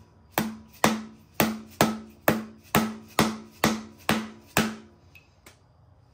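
Hammer striking a bolt set in the pilot bore of an LS engine's crankshaft: steady blows about two a second, ten in all, each with a short metallic ring. They stop about three quarters of the way through. The bread packed behind the bolt is forcing the old pilot bearing out, which is almost free.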